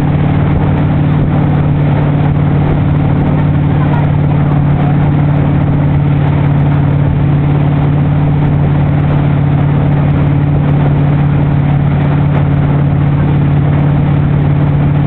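A motorboat's engine runs at a constant towing speed, a steady drone, over an even hiss of water rushing from the wake.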